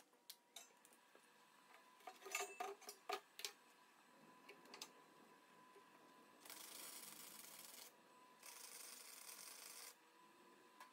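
Light metallic clinks and taps as angle-iron pieces are set in place on a steel table, then two short bursts of arc welding, each a steady hiss lasting about a second and a half, with a brief pause between them.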